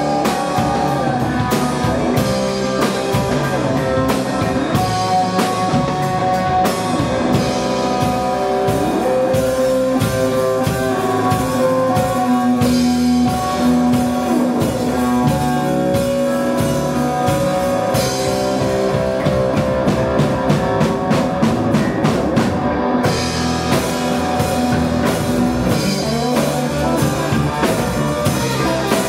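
Live rock band playing an instrumental passage on electric guitar, electric bass and drum kit, without vocals.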